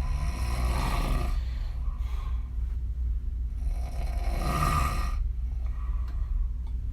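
A woman snoring on her back with her mouth open: two long snores about three and a half seconds apart, each lasting about a second and a half, with fainter breaths between them. A steady low hum runs underneath.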